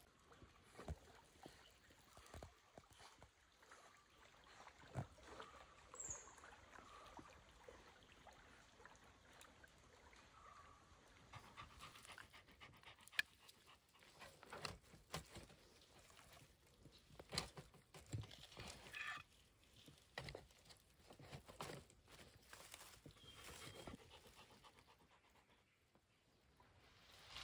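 A dog panting, with scattered light clicks and knocks as marinated quail is handled and laid into a wire grill basket.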